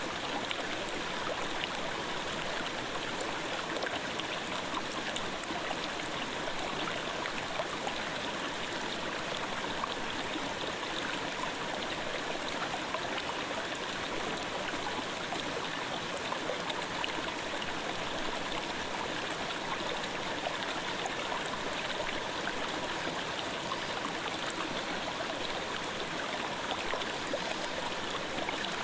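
Clear gorge stream babbling, a steady even rush of flowing water.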